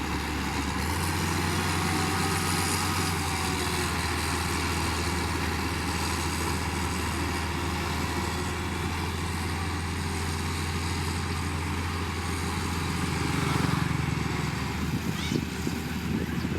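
Diesel engine of heavy road-construction machinery running steadily with a low hum, the engine note rising about a second in; it gets louder and rougher near the end.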